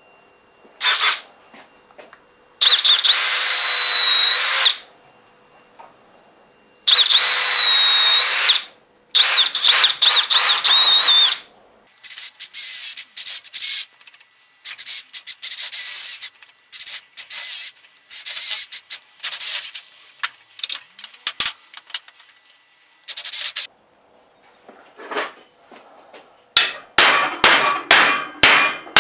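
Power drill boring the old wooden handle out of the eye of a ball-peen hammer head. First come three long runs with a steady whine, then many short, choppy bursts as it chews through the wood. Near the end, quick hammer blows drive a chisel into the eye, about three or four a second.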